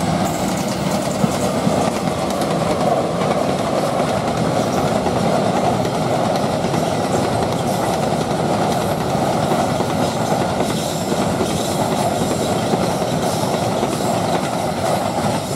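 Cement freight train's wagons rolling past, a loud, steady noise of steel wheels on the rails that holds unbroken throughout.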